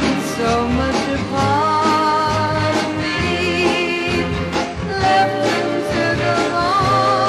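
A 1967 pop record playing: a woman singing over band backing with a steady beat.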